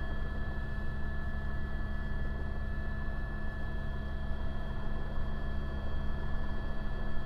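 Helicopter heard from inside its cabin in flight: a steady, heavy rotor and engine drone with a constant high whine above it.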